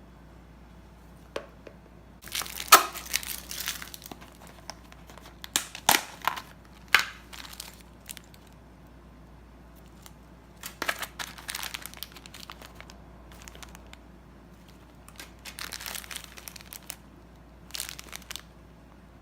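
Plastic packaging of small diecast wheel sets crinkling and rustling as it is handled, in several bursts with sharp clicks between quieter stretches.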